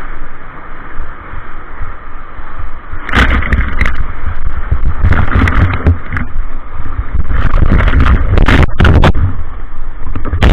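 Whitewater rapid rushing loudly around a paddle raft, with waves crashing over the raft and splashing onto the microphone, the splashes heavy and repeated from about three seconds in.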